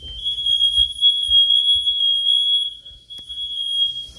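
Smoke alarm sounding under test: one shrill, steady high-pitched tone, briefly dipping about three seconds in and cutting off shortly before the end.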